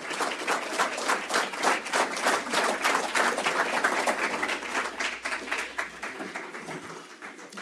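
Audience applauding, many hands clapping together, the applause dying away toward the end.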